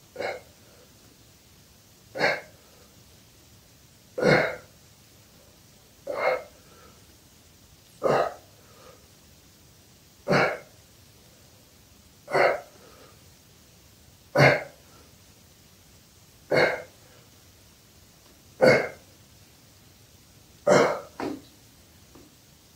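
A man's short, forceful exhalations, one with each abdominal crunch, about every two seconds; near the end two come close together.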